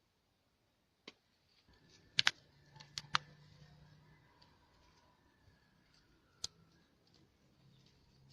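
Half a dozen sharp clicks and knocks, the loudest a quick pair about two seconds in, over a faint low hum.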